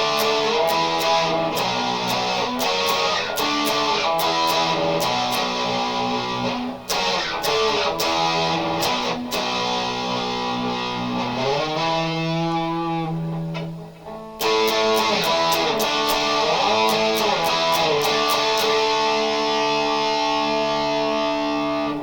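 Electric guitar, a Squier Sonic Stratocaster with a single humbucker pickup, played through an amp in strummed chords and riffs. About twelve seconds in the pitch bends and the playing briefly drops away, then it picks up again and ends on a long ringing chord.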